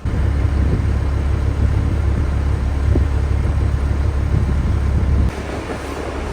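A vehicle driving at steady speed: a low, steady rumble of engine and road noise. It drops suddenly in level about five seconds in.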